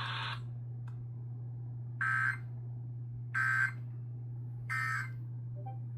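EAS/SAME end-of-message data bursts on a NOAA Weather Radio broadcast, closing the required weekly test: three short, buzzy digital squawks of about a third of a second each, roughly 1.3 s apart. A steady low hum runs underneath.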